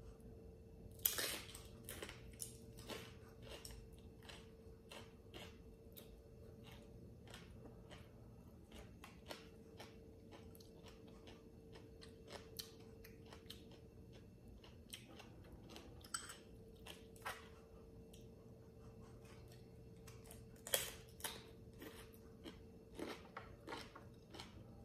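A person chewing and crunching toasted sesame rice cracker (bánh tráng đa) topped with shrimp and lotus-stem salad, in close sharp crackles. There are two loud crunchy bites, one about a second in and another about twenty seconds in.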